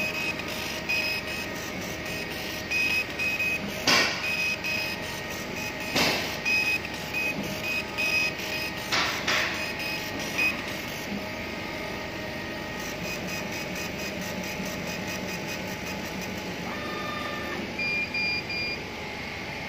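Laser cutting machine at work: the gantry's stepper motors whine in short pitched spurts as the head moves along the cut paths, over a steady background hiss, with a few sharp clicks. Near the end a short series of beeps sounds as the job finishes.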